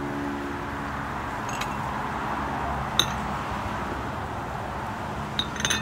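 Porcelain teacups and saucers clinking as they are set down on a table: a light clink about a second and a half in, a louder one about 3 s in, and a quick run of clinks near the end. Under them is a steady rush of water from a waterfall.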